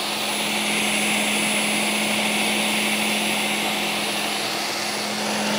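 A Ninja countertop blender running steadily at full speed, blending the cashew and blueberry mousse mixture: a constant motor hum under a high rushing whir.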